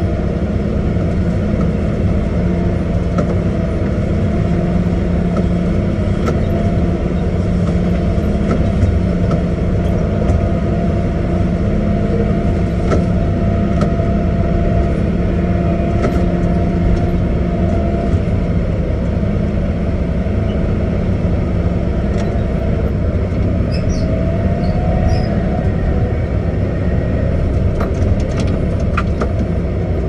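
Caterpillar 623K elevating scraper running at a loud, steady engine drone, heard up close from on the machine, with occasional clicks and rattles.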